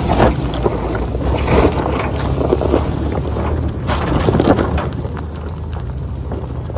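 Toyota Land Cruiser Prado 4WD engine running steadily under load as it climbs a rutted dirt track, with gusts of wind noise on the microphone. The engine grows a little quieter after about five seconds as the vehicle pulls away.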